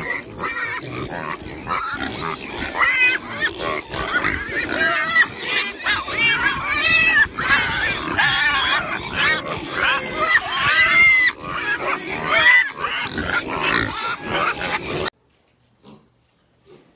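A crowd of pigs grunting and squealing all at once, many short rising-and-falling squeals over a constant chorus of grunts. It stops suddenly about fifteen seconds in, leaving near quiet with a few faint sounds.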